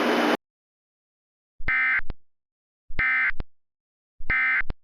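Emergency Alert System End of Message burst: three short bursts of warbling digital data tones, each about half a second long and about 1.3 s apart, with dead silence between them.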